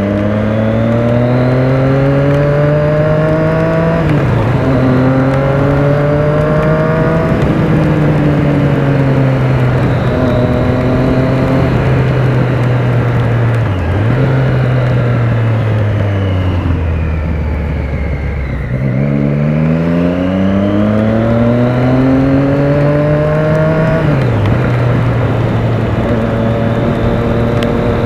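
Triumph Speed Triple 1050's three-cylinder engine under way, with its revs climbing and dropping sharply at each upshift several times. About two-thirds through the engine note falls as the bike slows, then climbs quickly through the gears again and settles to a steady cruise near the end, over wind and wet-road tyre hiss.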